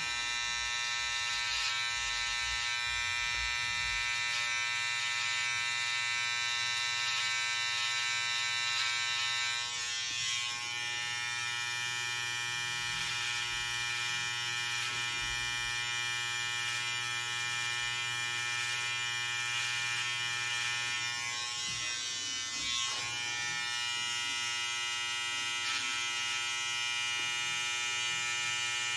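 Electric hair trimmer running steadily with an even motor buzz as it trims the moustache, the tone shifting slightly about ten seconds in and dipping briefly around twenty-two seconds.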